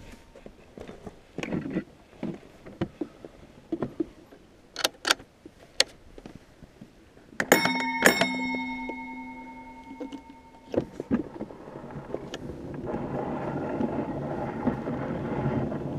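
Steel wheels of a small battery-electric ride-on railway car clicking and knocking over 7½-inch gauge track, with two sharp metallic clangs a little over halfway through that ring on for about two seconds. Near the end a steady rolling rumble builds as the car runs smoothly.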